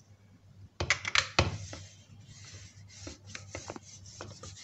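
Rolling pin rolled back and forth over a sheet of dough in a plastic tray: a soft rubbing, with a few sharp clacks about a second in, then lighter clicks.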